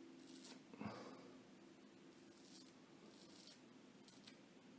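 Cichy Custom Knives straight razor scraping through lathered stubble on the cheek during the first pass, in about five faint, short strokes.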